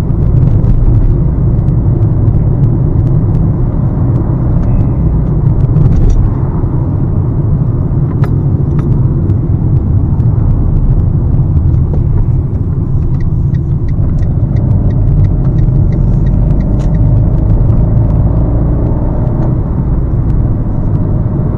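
Steady rumble inside the cabin of a Fiat Panda 4x4 cruising along: engine and road noise heard from the driver's seat.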